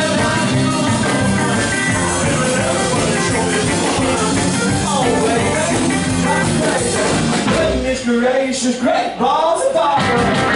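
Live rockabilly band with piano, drums and lead vocal playing a song. About eight seconds in the band thins out, leaving the singer's voice over sparser backing.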